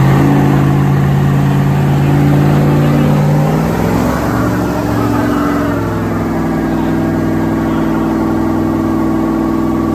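Lifted Dodge Ram pickup's engine held at high revs while the rear tyres spin in a smoking burnout. The pitch drops a little about four seconds in, then holds steady.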